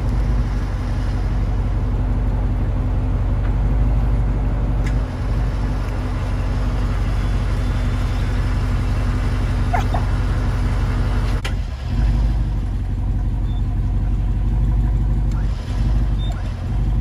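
Jeep Wrangler Rubicon 392's 6.4-litre HEMI V8, with aftermarket exhaust, idling steadily in drive with no throttle. A couple of brief knocks come from the winch hook-up at the front bumper.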